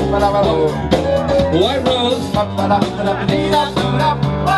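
Music: a song with singing over instruments and a steady beat.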